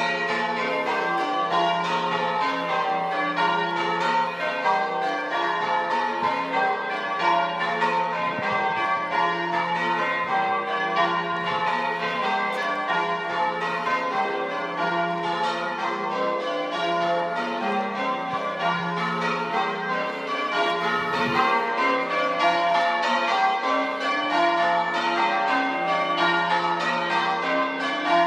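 Ring of six church bells, five Pennington bells and a 13 cwt John Taylor tenor in F, rung full circle, striking one after another in a continuous, even rhythm with the notes ringing on into each other.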